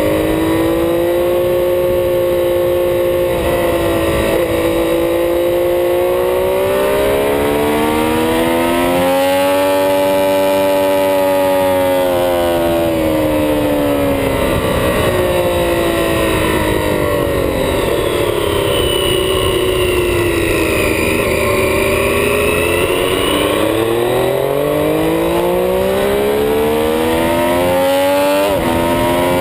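Triumph Street Triple's 675 cc three-cylinder engine at track speed, heard onboard, its pitch rising under acceleration and sinking as it slows, with a steep climb near the end. Wind rush on the camera mic runs underneath.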